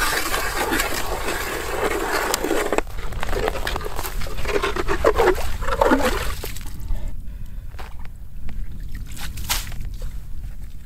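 Hand-cranked ice auger drilling through lake ice, the steel blades scraping and grinding steadily; the steady grinding breaks off sharply about three seconds in. Rougher scraping and sloshing follow as the auger breaks through to water. The last few seconds are quieter, with scattered clicks and splashes.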